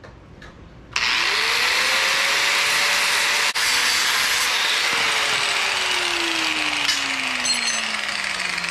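Corded angle grinder with a thin cutoff wheel switched on about a second in. Its motor whine rises quickly to speed, then it cuts through steel angle iron with a loud grinding hiss. In the second half the whine falls steadily in pitch.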